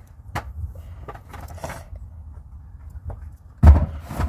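Small clicks and handling knocks inside a car, over a low steady rumble, with one loud thump a little before the end.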